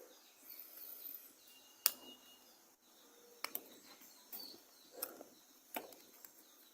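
A handful of sharp little clicks and taps, roughly a second apart, from handling the plastic housing and parts of a Nokia 1280 keypad phone as it is taken apart. Faint bird chirps sound in the background.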